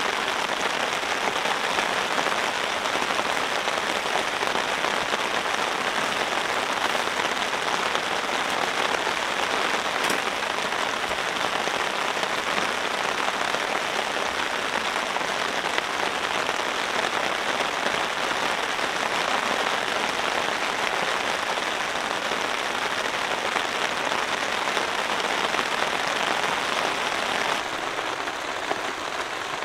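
Steady rain falling on a camping tarp, an even hiss of drops that turns slightly softer near the end.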